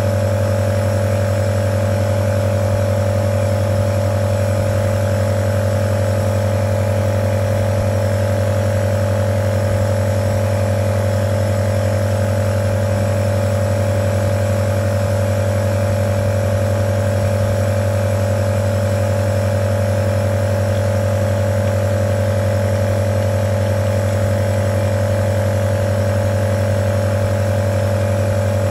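Omron NE-C28 compressor nebulizer running, its compressor giving a steady, unchanging low hum while it drives the nebulizer cup.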